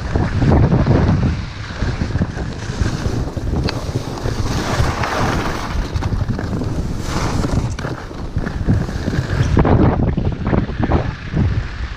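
Wind rushing over a body-mounted action camera's microphone as a skier descends, with skis hissing and scraping on the snow through turns; it surges louder near the start and again about ten seconds in.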